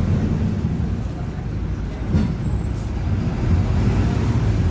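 Mercedes-Benz OF-1721 city bus running along with a steady low rumble and its differential growling. A single knock comes about two seconds in.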